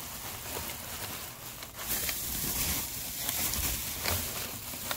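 Bubble wrap and crumpled packing paper rustling and crinkling as they are handled, with small clicks, getting louder about two seconds in.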